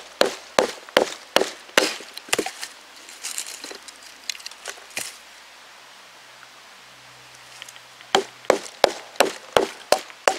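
Batoning: a wooden baton striking the spine of a knife driven into a short section of wood, splitting it into small pieces. Sharp knocks come about twice a second, give way to softer cracking as the wood splits, stop for a few seconds, then start again about eight seconds in.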